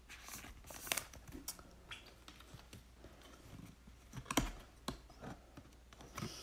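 Soft clicks and rustling of a trading card being handled in a thin plastic sleeve and a hard plastic toploader, with a louder tap about four seconds in.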